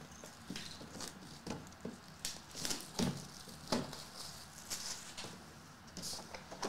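Irregular taps, clicks and crinkling rustles of packaging being handled, as a sealed case of trading-card boxes is opened.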